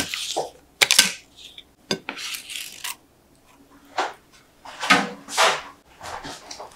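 A parchment-lined ceramic plate being handled: raw sweet potato slices laid onto it, then the plate lifted off a wooden board, giving a series of separate clinks and taps with short paper rustles, quieter for a moment midway.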